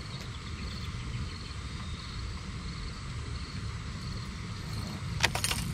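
Wind rumbling on the microphone, with faint high chirping and a short crackle a little over five seconds in.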